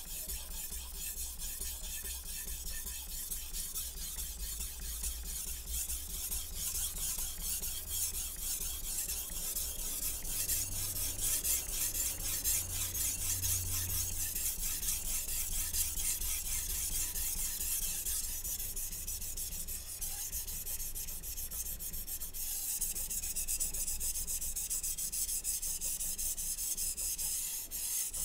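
Steel edge of a Shun chef's knife rubbing and scraping along a wet Naniwa Chosera waterstone in repeated back-and-forth hand strokes. This is one more sharpening pass on one side after a very fine burr has already formed.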